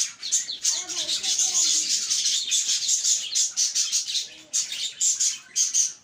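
Many small cage birds chirping and twittering at once, with short high calls overlapping thickly and no pause.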